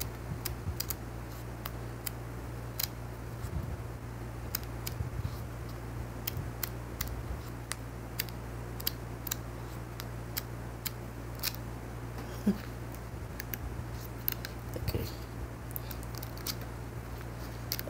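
Pages of a 6 x 6 inch scrapbook paper pad being turned and handled: scattered light crisp paper clicks and rustles, over a steady low hum.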